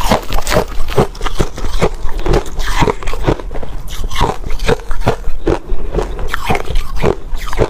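Close, loud crunching of clumped crushed ice being bitten and chewed: a quick run of sharp, brittle cracks, two or three a second.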